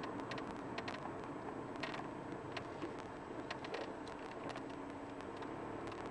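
Car driving slowly, heard from inside: a steady hum of engine and road noise with a number of scattered sharp clicks.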